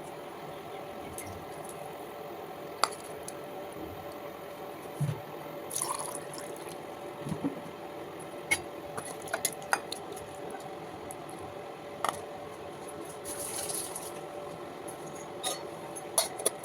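Kitchen cooking sounds: a steady hiss of something cooking on the stove, with scattered light clicks and clinks of utensils against pots and dishes.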